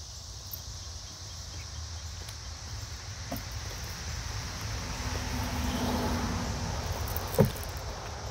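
Steady high drone of insects, with footsteps on gravelly asphalt and one sharp knock about seven seconds in; no grinder is running.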